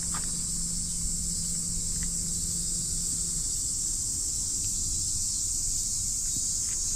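A steady, high-pitched drone of insects. A faint low hum underneath stops about halfway through.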